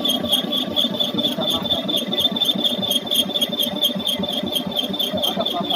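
Portable line boring machine running on an excavator bucket pivot bore: a steady mechanical sound with a high whine that pulses rapidly and evenly over a low, pulsing rumble.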